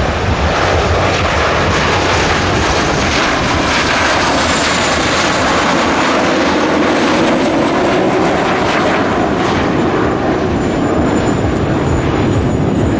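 Patrouille de France Alpha Jets flying past in formation: a loud, steady jet roar whose pitch drops about midway through as the aircraft pass.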